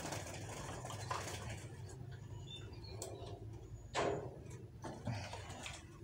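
Bamboo bird cage being handled: scattered light clicks and rattles of the bars and door, with a louder knock about four seconds in.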